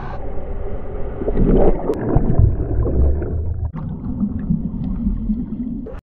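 Ocean shorebreak wave crashing and water churning around a GoPro Hero 3 in the surf and underwater, heard as a muffled low rush. It is loudest between about one and three seconds in and changes abruptly about midway.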